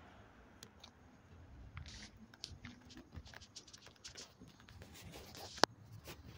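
Faint scattered clicks and rustles from a handheld phone camera being carried along while filming, with one sharp, loud click near the end.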